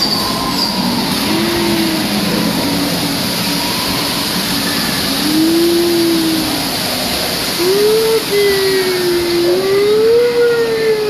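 Amusement-park ride running along its track in the dark: a loud, steady rumble and rattle. A wavering, wailing tone rises and falls over it, briefly at first and then for most of the second half.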